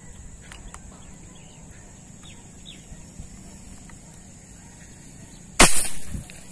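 A sudden sharp snap and rush about a second before the end, fading over about half a second: a slingshot fishing arrow being shot. Faint bird chirps before it.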